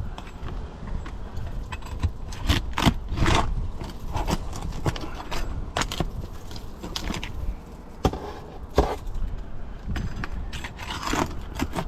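Roof shingles being lifted and worked by hand during a repair: irregular scrapes, rustles and sharp clicks over a low rumble.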